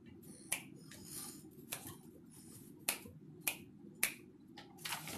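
About five short, sharp clicks at uneven intervals over a low, steady background noise.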